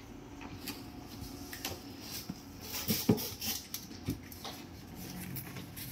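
Fingertip taps and small clicks on the glass touch-control panel of a Teka DDI 90 downdraft hood, the loudest about three seconds in. A low steady hum sets in near the end.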